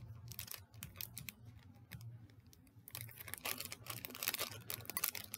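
Fingers working at a chain bracelet and its small fastening: light, irregular clicks and rattles, busier in the second half, over a low steady hum.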